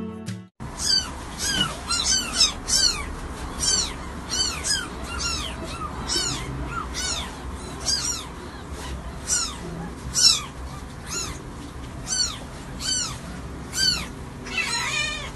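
Newborn kittens mewing: a run of short, high-pitched cries that each rise and fall, about one or two a second. The tail of a music track cuts off in the first half-second.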